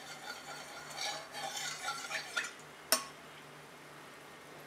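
Sugar frying in hot mustard oil in a metal kadai as a flat spatula stirs it, with a faint sizzle and crackle. One sharp knock of the spatula on the pan about three seconds in, after which the sizzle dies down.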